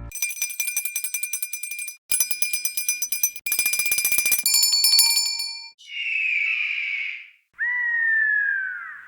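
A sequence of cartoon sound effects: a small bell rung rapidly in several short bursts, then a wavering high shrill tone, then a whistle-like tone sliding downward near the end.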